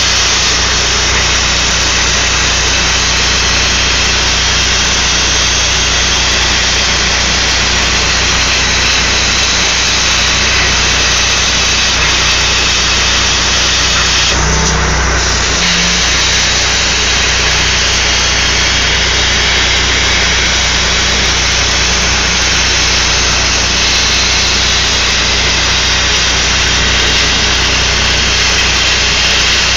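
Everlast Power Plasma 60C plasma torch cutting steel plate on a CNC table: a loud, steady hiss of the arc and cutting air. It breaks off for about a second about halfway through, then resumes.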